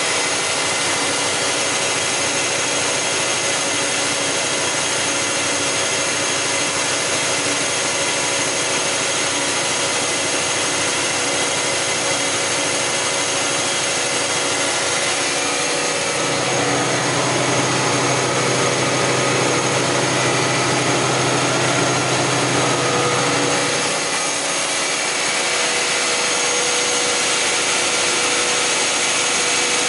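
Weinig Quattromat 23P four-sided planer running, its cutter heads spinning with a steady high whine. It grows louder and rougher with an added low hum for about eight seconds midway, then settles back.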